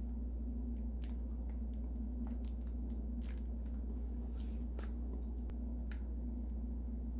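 Squeeze bottles of coleslaw dressing and ketchup sputtering as sauce is piped out: a scattered run of short squirts, pops and clicks over a steady low hum.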